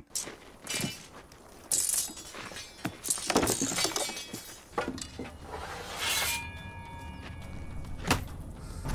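Battle sound effects: a run of separate sharp clanks and crashes, with a metallic ringing tone about six to eight seconds in.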